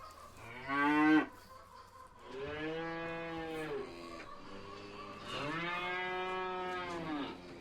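Dairy cows mooing: a short moo about a second in, then two long, drawn-out moos.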